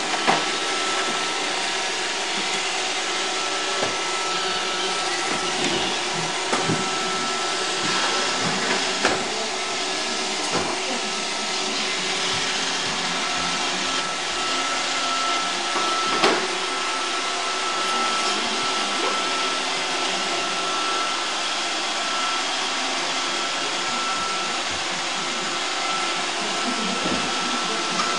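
iRobot Roomba 555 robot vacuum running: a steady whirring hum with a thin high tone, broken now and then by short sharp knocks, the loudest about sixteen seconds in.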